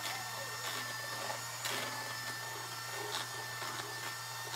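Electric hand mixer running steadily on low speed, its beaters whirring through a wet mix of melted butter, eggs and vanilla, with a few light ticks along the way.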